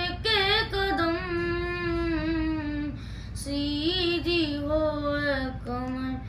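A boy's voice chanting a noha, an Urdu lament, unaccompanied. He holds long, wavering melismatic notes in phrases, with a short breath about three seconds in and another near the end.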